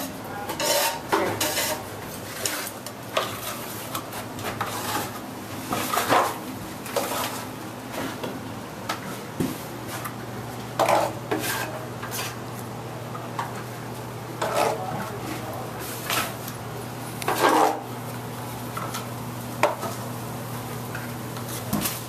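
Hand plastering: a steel trowel scraping lime-and-moulding-plaster mix off a board and working it onto the wall, in irregular scrapes and clacks. A steady low hum runs underneath.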